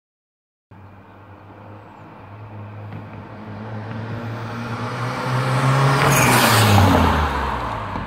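Volvo 240 with a swapped-in B230FT turbocharged four-cylinder driving past: after a moment of silence the engine note comes in and grows louder as the car approaches, peaks about six to seven seconds in, then drops in pitch as the car goes by and pulls away.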